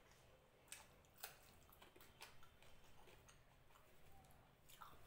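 Faint eating sounds: a few soft clicks and smacks from chewing and from fingers mixing rice on a plate.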